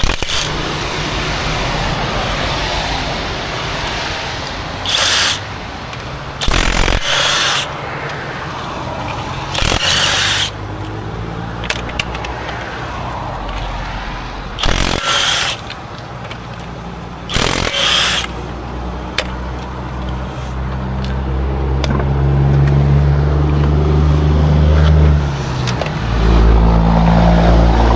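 Highway traffic noise with five short bursts of about a second each, typical of an impact wrench running lug nuts during a roadside tire change. A low engine hum grows louder over the last several seconds.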